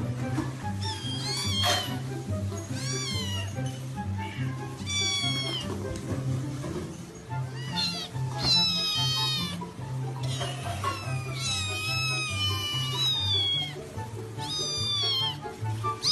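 A domestic cat meowing again and again, about a dozen rising-then-falling meows, a couple of them drawn out, over background music with a steady beat.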